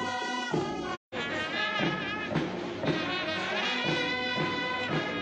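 A police brass band playing a march: sustained brass notes over a steady drum beat of about two beats a second. The sound cuts out completely for a split second about a second in.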